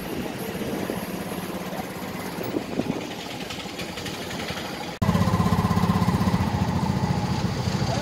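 Outdoor street background with people's voices and passing traffic; about five seconds in, the sound cuts abruptly to a louder, steady, fast-pulsing small engine running close by, an auto-rickshaw (tuk-tuk).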